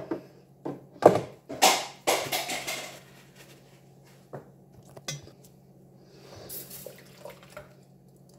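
Plastic asthma spacer parts knocking and rattling against a wire dish rack at a sink, a cluster of clatters in the first three seconds and then a few single clicks. Near the end comes soft splashing as a plastic nebuliser part is washed in soapy water.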